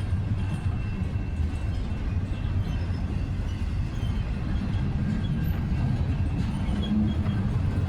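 Long freight train rolling past: a steady, unbroken rumble of cars and wheels on the rails, with faint high ringing tones from the wheels.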